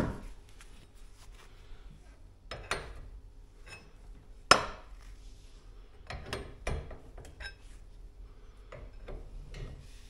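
Steel winding bars clinking and knocking against the winding cone of a garage door torsion spring as the spring is unwound bar over bar under heavy tension, with smaller taps and scrapes between. The sharpest clink comes about halfway through, and a cluster of lighter knocks follows.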